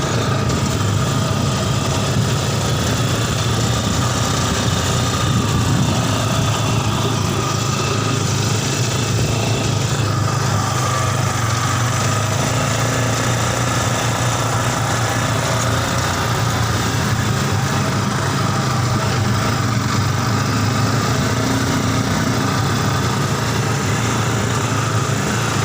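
Mini buggy's Yamaha Scorpio Z 225 cc single-cylinder four-stroke engine running steadily at an even pitch.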